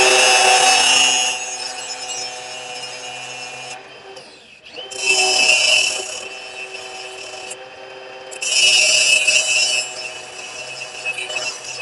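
Power grinder running with a steady motor whine while steel is pressed against it three times, giving loud rasping passes of about a second each: the top and sides of a forged steel slot punch being ground flat.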